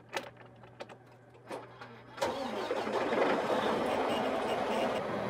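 A few clicks as a key is turned in a Freightliner heavy truck's ignition, then about two seconds in the truck's diesel engine starts and runs on loud and steady.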